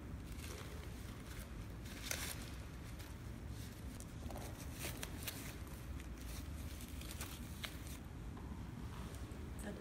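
Faint handling sounds: a few scattered soft clicks and light rustles as the shoe is moved and set down in a glass display case, over a low steady room hum.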